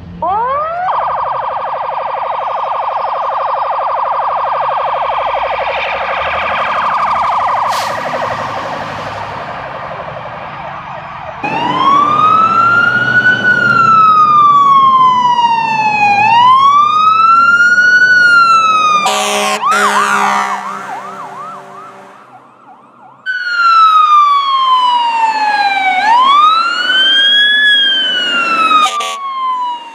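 Fire truck sirens: first a siren that sweeps up and holds a steady, fast-fluttering tone, then an electronic wail siren slowly rising and falling. Between the wails come a few seconds of horn blasts.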